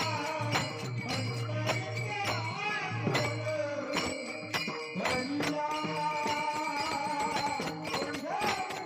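Folk-style music: a sweet, wavering melodic voice over a steady beat of jingling percussion, with a low drone under it that stops about four seconds in.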